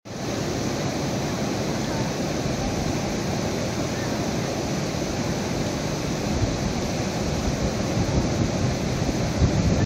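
Steady rush of the flooded Ambika River, fast brown floodwater surging past a stranded truck, with a few louder low bumps near the end.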